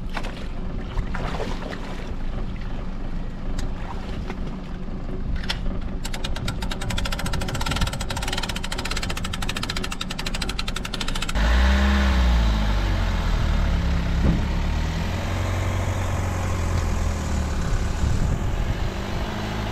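Water sloshing around a wading person with a fast run of ticking, then, from about halfway in, a car engine pulling a loaded boat trailer up a slipway: a steady low drone.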